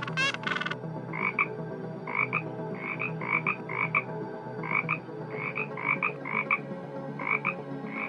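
A frog croaking: short calls repeated about twice a second, some in quick pairs. Another animal's louder calls stop just under a second in, and a steady low background hum runs underneath.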